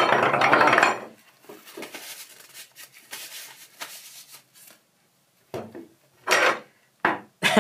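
Metal drill bits clinking and rattling as they are handled and fitted into an SDS-plus hammer drill, loudest in the first second, then scattered lighter clicks and knocks with a few sharper clatters near the end.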